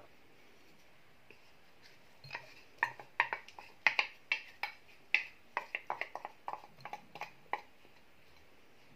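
A utensil taps and scrapes against glass bowls in a quick series of sharp clicks, starting about two seconds in and stopping near the end, as chopped herbs are scraped from one glass bowl into another.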